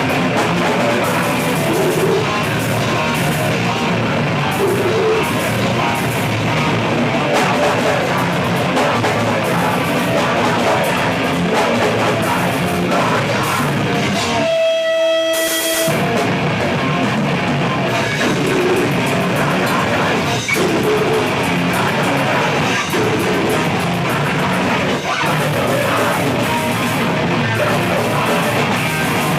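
Live heavy rock band playing loud, with electric guitar and drum kit. About halfway through, the band stops for a moment, leaving one held note ringing alone, then the full band comes back in.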